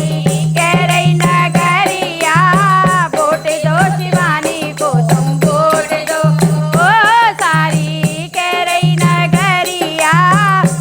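Instrumental interlude of a Hindi folk song: a gliding melody over a steady, repeating percussion beat with rattling, jingling percussion.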